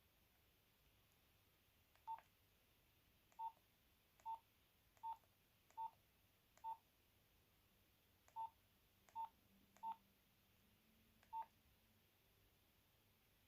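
Nokia 8210 keypad tones: ten short beeps of one pitch, spaced unevenly, one for each key press on the handset.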